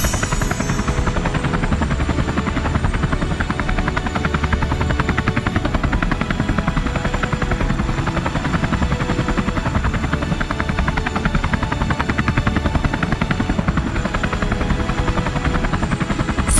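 Tour helicopter in flight, heard from on board: the rotor's steady rapid beat over the engine's constant drone.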